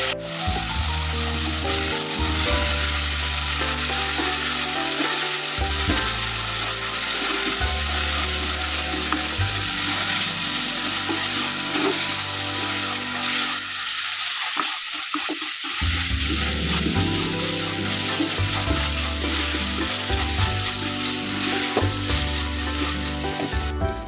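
Okra, onion, green chillies and tomato sizzling in hot oil in an earthenware clay pot, stirred with a spatula, over background music.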